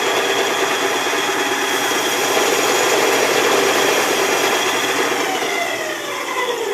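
Belt sander's motor and belt running at full speed with a steady whine, then winding down with a falling pitch over the last second or two as it is switched off.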